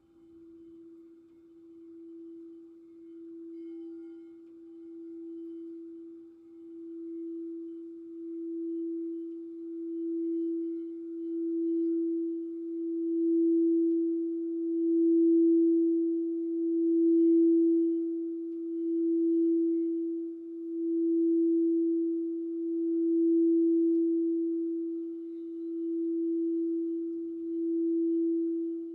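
Crystal singing bowl played around its rim, holding one steady mid-pitched tone. The tone swells and ebbs about every two seconds, building from faint to full over the first half and easing slightly near the end.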